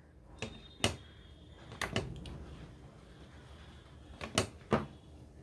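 Several sharp clicks and knocks of small hand tools and wire being handled on a workbench, coming roughly in pairs, while wire is measured for cutting.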